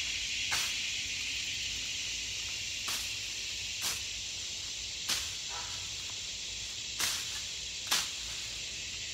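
A hand-swung cane cutter slashing through tall grass in about six quick, unevenly spaced swishes, over a steady chorus of crickets and other insects.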